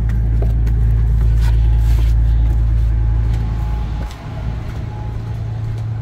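A steady low rumble that drops in level about four seconds in, with a few faint knocks over it.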